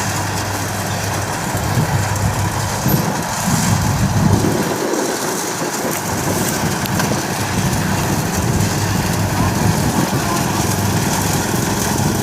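Kubota DC60 combine harvester running steadily as it cuts rice, its diesel engine and threshing machinery making a continuous machine sound.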